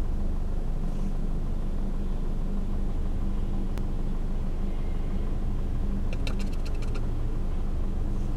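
Renault Mégane III engine running steadily, with an extraneous noise the owner cannot identify. A single sharp click comes near the middle, and a short burst of rapid clicks follows about six seconds in.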